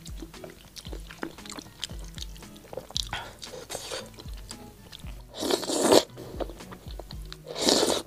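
A person slurping up spicy Buldak fire-chicken noodles, two loud long slurps in the second half after a softer one, with small chewing noises between. Background music with a steady beat runs underneath.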